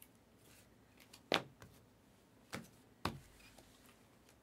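Trading cards in hard plastic top loaders being handled: three sharp clicks as they are tapped and set down, the first about a second in and the loudest, with a few fainter ticks around them.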